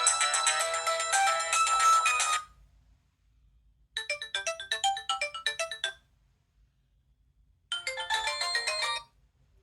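Nokia 6230i mobile phone ringtones playing one after another, separated by short silences. One tune, with several notes sounding together, ends about two seconds in. A second runs of quick notes for about two seconds from about four seconds in, and a third short one plays near the end.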